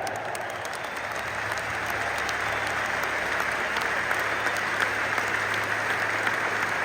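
Large football stadium crowd applauding: a dense, steady clatter of many hands clapping that swells slightly after about a second.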